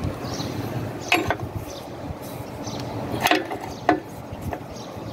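A few sharp clinks of an open-end spanner on the steel hydraulic hose fittings, about a second in and again around three to four seconds in, over a steady low rumble.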